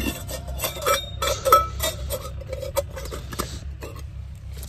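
Metal dishes clinking and knocking as they are washed by hand: a small steel milk can and its lid tapping against each other and other pots in a string of irregular clinks, the loudest about a second and a half in with a short ring.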